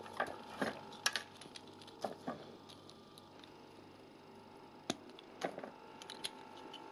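Small plastic building bricks clicking and tapping as pieces are handled and pressed onto a toy vehicle model: scattered short sharp clicks, several in the first couple of seconds and a few more near the end, over a faint steady hum.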